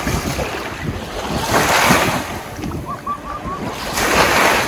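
Wind buffeting the microphone over lake water washing and lapping, with two louder rushing surges, about a second and a half in and again near the end.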